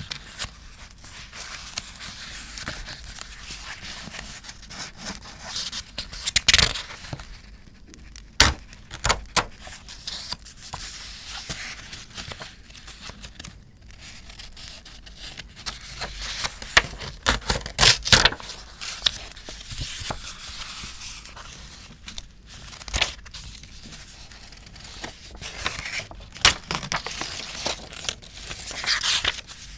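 Paper being handled for art journaling: tearing, crinkling and rustling of paper and sticker sheets, with sharp irregular crackles. A campfire crackles in the background.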